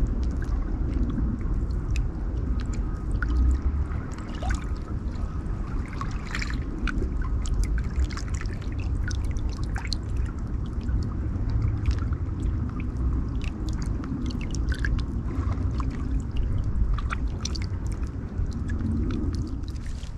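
Water trickling and lapping, with many small irregular splashes and drips over a steady low rumble.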